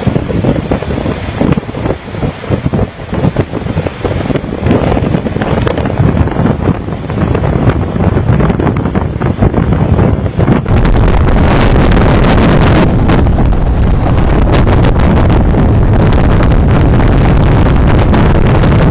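Storm wind buffeting the microphone over heavy seas, gusty and uneven, with waves breaking; about ten seconds in it changes to a steady, loud rush of gale wind on the microphone.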